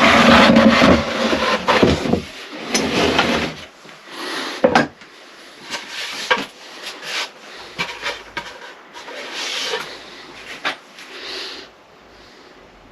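Wooden bed slats being handled and worked: rough scraping and rubbing for the first few seconds, then scattered knocks and shorter rubs, quieter toward the end.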